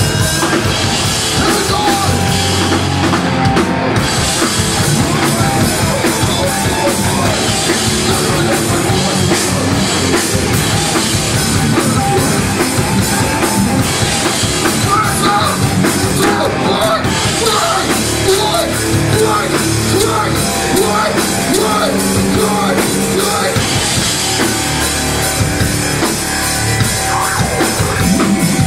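Live rock band playing loudly: electric guitars, bass guitar and drum kit going without a break.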